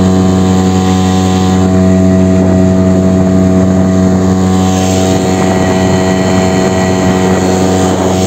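Small outboard motor on an inflatable boat running at a steady cruising speed, an even engine drone with water and air hiss over it.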